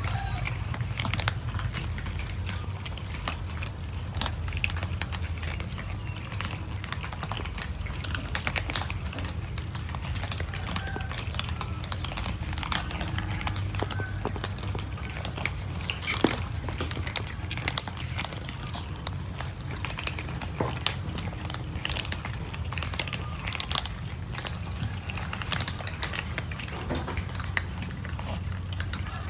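Group of cats crunching dry kibble: a dense, irregular crackle of crisp clicks from chewing, over a steady low hum.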